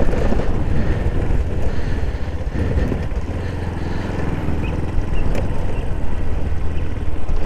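Motorcycle engine running steadily as the bike is ridden, under a steady rush of noise.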